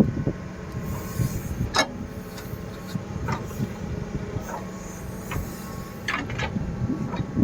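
Diesel engine of heavy machinery running steadily, with occasional sharp metallic knocks and clanks over it.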